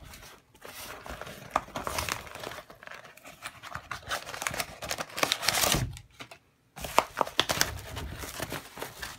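Cardboard of a USPS Priority Mail box being torn and crumpled by hand in fits, with sharp crackles, a struggle to get it open. There is a brief pause about six seconds in.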